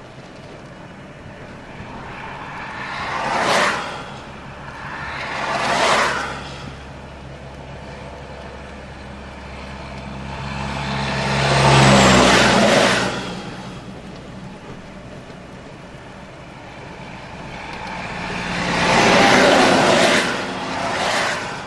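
Road traffic passing close by on a highway, one vehicle after another: two quick passes a few seconds in, a louder one with a low engine drone around the middle, and another near the end, each swelling and fading away.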